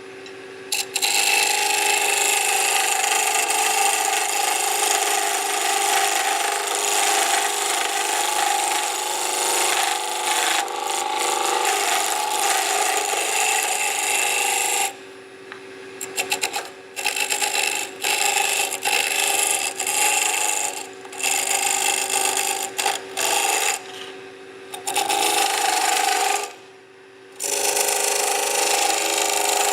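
A turning chisel cutting a wooden spindle spinning on a woodturning lathe to a taper: a steady rasping hiss over the lathe's hum. In the second half it stops and starts several times as the tool comes off the wood.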